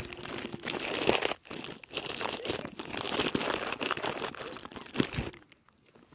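Plastic crisp packet crinkling and rustling close to the microphone as a hand rummages in it; the rustling stops about five seconds in.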